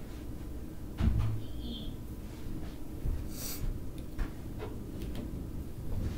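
Handling and movement noise as a person moves about and picks up a hand weight: a sharp knock about a second in, a short hiss near the middle and a few softer knocks, over a low steady rumble.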